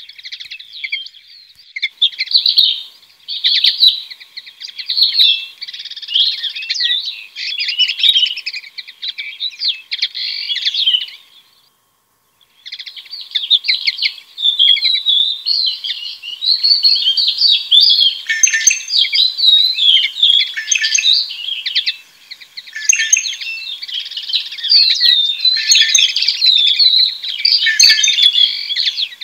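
Southern grey shrike singing nearby, a long run of varied, scratchy chattering and warbling phrases with a short break about twelve seconds in, mixed with other birds further off.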